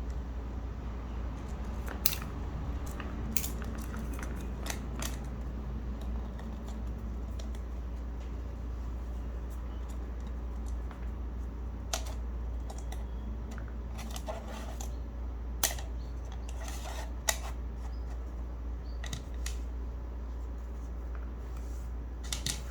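Scattered sharp clicks and snaps, about ten at irregular gaps, from parts of a mechanical keyboard being handled and taken apart, over a steady low hum.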